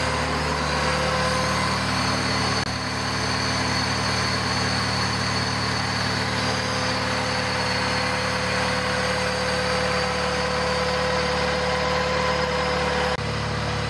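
1995 Honda Civic Estilo's four-cylinder VTEC engine idling steadily, heard with the bonnet open. The idle note changes slightly near the end.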